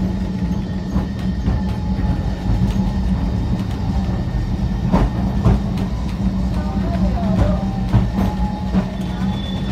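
Cable-hauled tram car of the Great Orme Tramway running along its track, heard from inside the car: a steady low hum and rumble, with occasional clicks and knocks from the wheels and rails.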